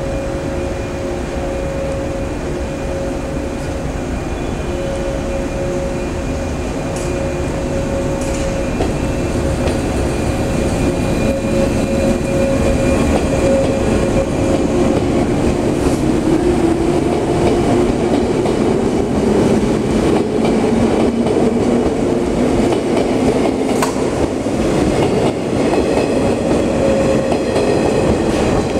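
485 series electric multiple unit departing: a steady hum with two held tones, then a motor whine that rises in pitch and grows louder as the train picks up speed.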